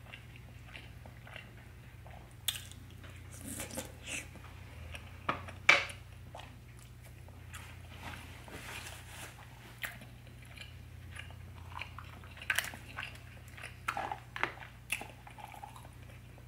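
Close-miked chewing and mouth smacks of someone eating a sauced seafood boil, with scattered sharp clicks, the loudest about six seconds in and a busier run of smacks in the latter part.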